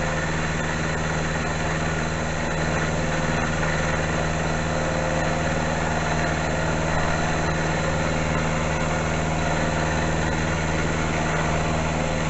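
Small milling machine running steadily, its motor and drive giving a constant hum with several steady tones.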